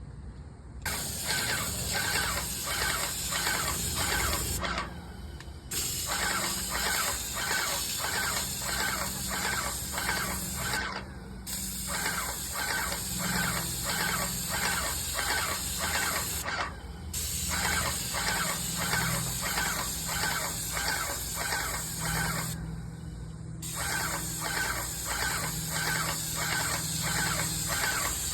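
Paint sprayer spraying in stretches of about five seconds, a steady high hiss over a pulsing of about two to three strokes a second, stopping briefly four times between passes.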